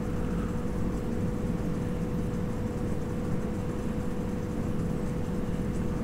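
Steady low mechanical hum of a kitchen, with a thin constant tone, under quiet stirring of mushrooms in a frying pan with a wooden spatula.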